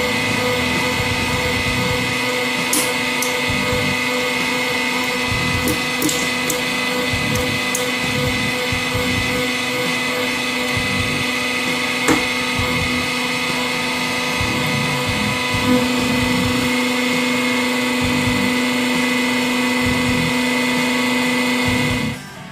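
Hydraulic press running with a steady, high motor-and-pump whine as its guillotine blade is forced down through a D-size battery, with a few sharp cracks from the battery casing giving way, the clearest about halfway through. The whine stops abruptly near the end.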